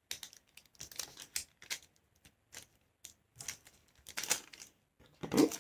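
A sheet of thin paper being folded in half by hand on a wooden tabletop: irregular crinkles, clicks and short scrapes as the fold is lined up and the crease pressed flat, a little louder near the end.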